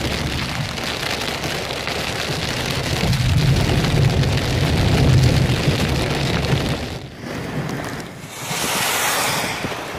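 Heavy rain and wind noise over a low rumble, heard from inside a car driving through a downpour. About seven seconds in it cuts to a brief rushing hiss of a muddy flash-flood stream.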